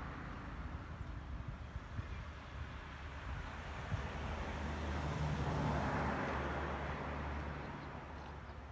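A motor vehicle's engine running steadily nearby, growing louder about five seconds in and then fading, as if passing by.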